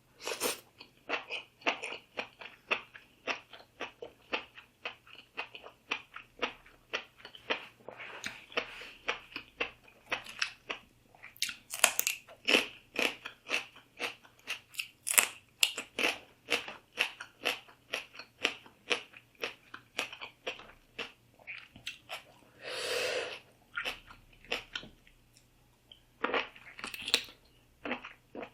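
A person chewing and crunching food close to the microphone, a steady stream of quick irregular clicks, with one longer noisy sound lasting about a second near the end.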